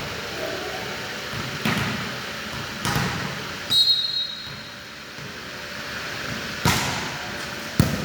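A volleyball being struck during play: about five sharp smacks spread over eight seconds, with a brief high-pitched tone near the middle.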